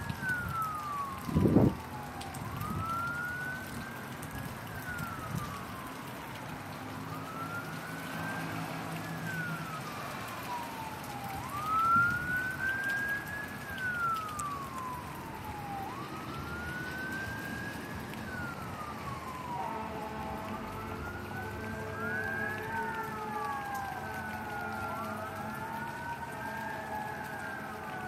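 Emergency-vehicle siren wailing, rising slowly and falling about every four seconds, over a steady hiss of rain. A second siren joins about twenty seconds in, wailing out of step with the first. A sharp thump sounds about a second and a half in.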